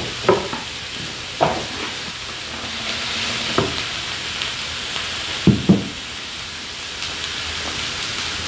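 Thin-sliced beef brisket and garlic sizzling steadily on a round grill pan over a portable gas burner. Several sharp knocks of tableware come through over it, two close together about two-thirds of the way in and loudest of all.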